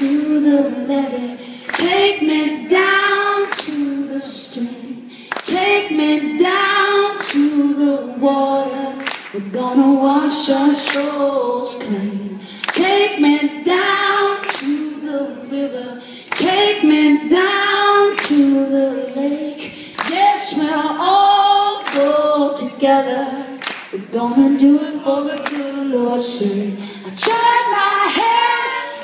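A woman singing solo with long held, wavering notes, accompanied only by a hand tambourine struck and shaken in time.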